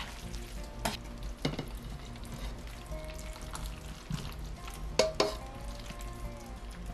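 Spatula scraping and knocking against a wok as stir-fried noodles are pushed out of it into a glass dish. There are four sharp knocks, one about a second in, another half a second later, and two close together about five seconds in.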